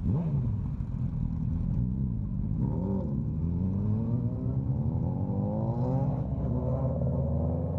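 Motorcycle engine accelerating. Its pitch dips briefly about three seconds in, then climbs steadily for several seconds.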